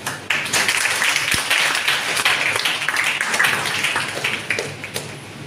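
Audience applauding, breaking out suddenly just after the start and dying away near the end.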